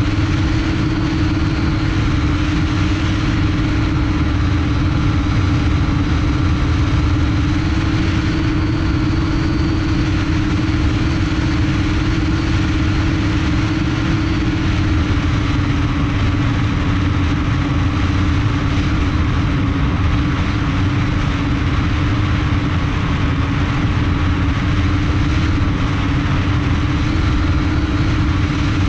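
Multirotor drone's brushless motors and propellers running steadily in flight, heard from a camera mounted on the frame. The hum holds steady, dips slightly in pitch about halfway, and sits over a continuous low rumble.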